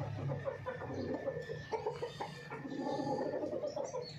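Chickens clucking: a run of short, repeated clucks.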